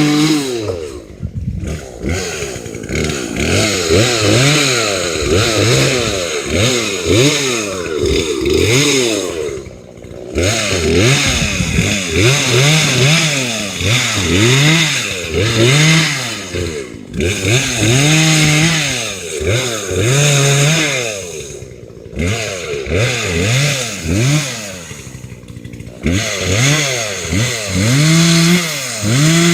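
Chainsaw running and cutting into a tree, its engine revving up and dropping back over and over every second or two, with a few brief drops toward idle.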